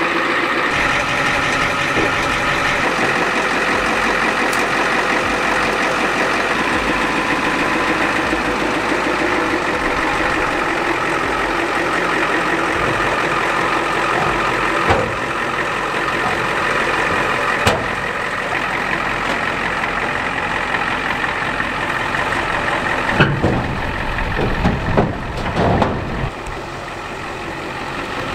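1989 Ford F-250's naturally aspirated 7.3L IDI V8 diesel engine running steadily at idle. A few sharp clicks midway and some low thumps near the end.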